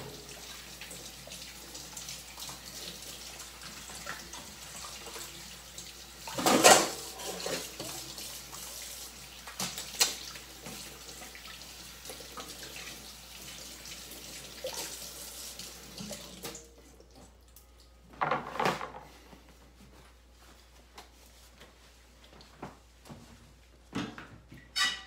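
Kitchen tap running into a sink as onions are washed under it, with a loud knock about a quarter of the way in. The water is turned off about two-thirds of the way through, and a few light knocks follow.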